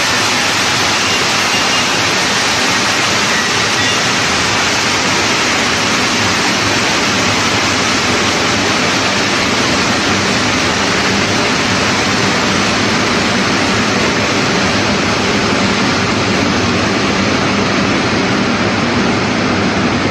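Oil pipe inner-wall sand blasting machine running: a loud, steady rushing hiss that does not change.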